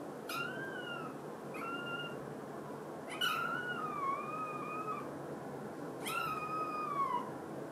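A 50-day-old Munchkin kitten meowing four times in high-pitched mews: two short ones, then a long drawn-out one, then one that slides down in pitch at the end.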